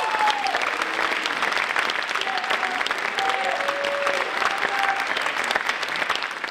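Audience applauding steadily after a dance piece, with a few voices calling out over the clapping.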